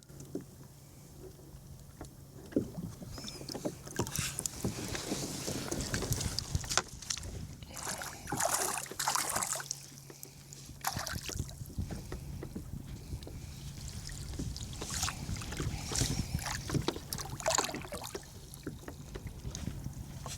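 Water splashing and sloshing around a kayak, with irregular handling knocks and rustles, over a steady low hum.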